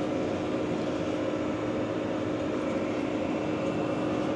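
Tractor engine running steadily under load while pulling a round baler, heard from inside the cab as an even drone with a constant hum.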